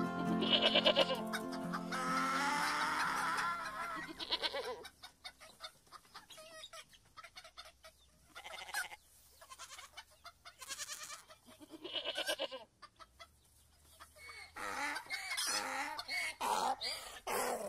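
Chickens clucking in short separate calls, coming more often near the end. In the first few seconds the tail of acoustic guitar music fades out.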